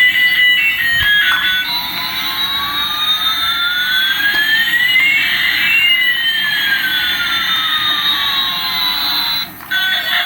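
A few notes of an electronic tune, then a synthesized jet-like sound effect: a steady hiss with one whine rising and another falling, the two crossing about halfway and stopping near the end.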